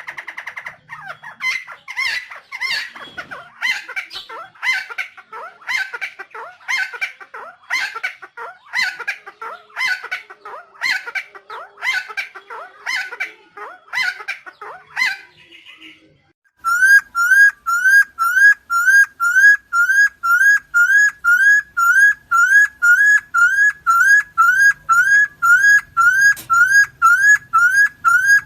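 Helmeted friarbird (Philemon buceroides) calling: a long run of harsh, raspy notes, about one and a half a second. After a brief pause about 16 seconds in, it switches to a rapid, very even series of rising whistled notes, about two a second.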